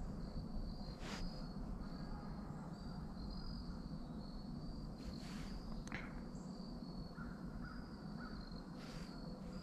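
A crow cawing three times, about four seconds apart, over the steady high chirping of insects in woodland.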